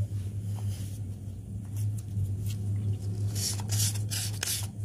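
A steady low hum, and from about three seconds in, four or five quick strokes of sandpaper rubbed by hand over a carved hollow in a mulberry wood board.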